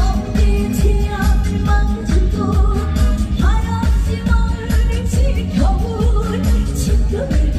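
Korean pop-style song performed live: a singer with sliding, ornamented notes over an amplified backing track with a steady thumping beat.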